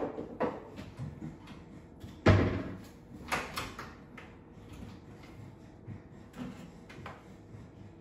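Kitchen cupboard doors and dishes being handled: scattered knocks and clicks, one loud bang a little over two seconds in, a clatter about a second later, then a few lighter knocks.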